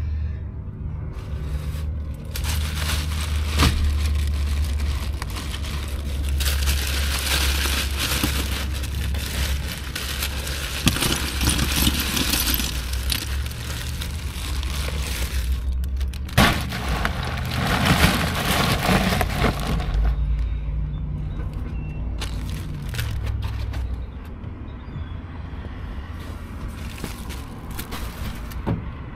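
Plastic bags crinkling and rustling as a cooler is unpacked and repacked, loudest in two long stretches, over a steady low rumble.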